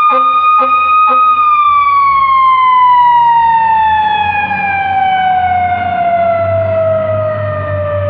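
Fire truck siren peaking and then winding down slowly, its pitch falling steadily, typical of a mechanical siren coasting down. Over its first second comes a quick string of short air horn blasts, about three a second. The truck's engine rumbles low underneath in the second half.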